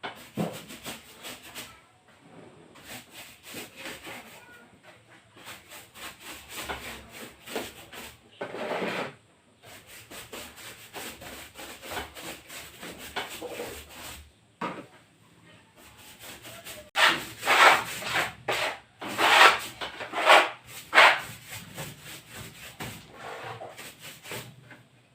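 Repeated hand strokes rubbing on a quarter-inch plywood wall panel, quick and uneven, growing louder and firmer about two-thirds through.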